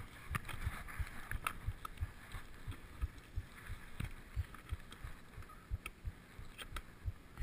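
Mountain bike rolling down a rough dirt trail, heard from a handlebar-mounted camera: tyre noise on dirt and leaves, with irregular knocks and rattles, a few a second, as the bike goes over roots and bumps.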